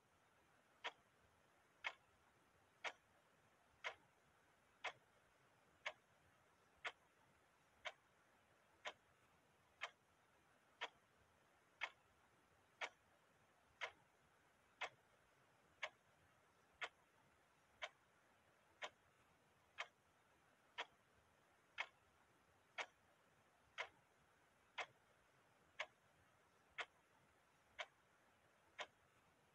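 Clock ticking evenly, about one tick a second, each tick a short sharp click.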